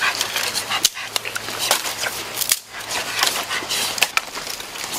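Dry leaves rustling and sticks clattering as they are handled by hand, with a scatter of sharp clicks and cracks.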